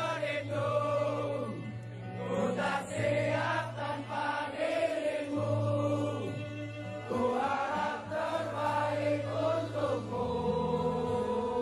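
Background music: a song with singing voices in a choir-like blend over long held low notes that change twice.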